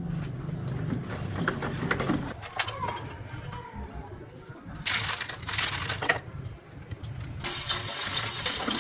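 Light metallic clinks and taps of small metal pieces being handled, with a denser rattle of clinks about five seconds in. Near the end a steady hiss starts and carries on.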